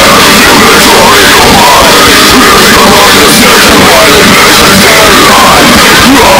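Loud heavy-metal music with young men yelling and growling extreme vocals along, inside a car's cabin. The recording is overloaded at full level throughout.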